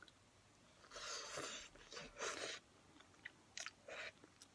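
A person biting and chewing crunchy food close to the microphone: two crunching bursts about one and two seconds in, then a few short chewing clicks.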